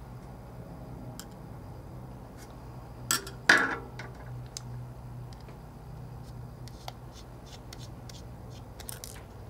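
Small metal clicks and taps of a screwdriver working the tiny screws in a phone's opened frame, with two sharper clicks about three seconds in, over a steady low hum.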